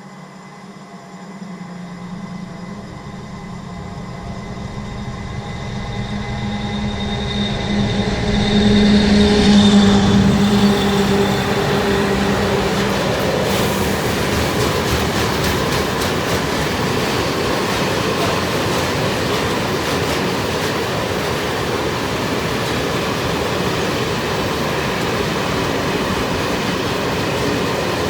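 Electric train on an electrified main line approaching and passing: a humming whine from the locomotive grows louder to its peak about ten seconds in, then gives way to a steady rumble of wheels on rails as the train rolls by.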